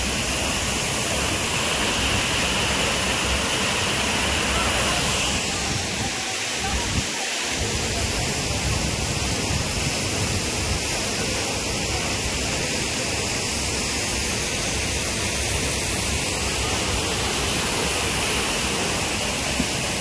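Soochipara waterfall's falling water: a loud, steady rush of noise.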